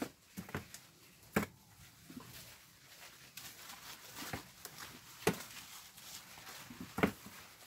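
Hand-picking cucumbers off the vines: leaves rustle and about half a dozen sharp knocks come at irregular intervals as picked cucumbers drop into a plastic bucket.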